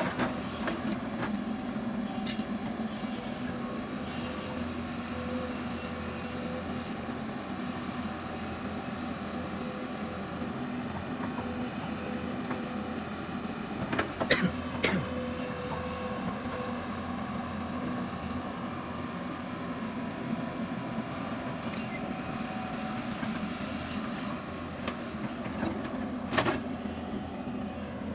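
Hydraulic excavator's diesel engine running steadily while digging, with a few sharp metallic clanks, twice about halfway through and once near the end.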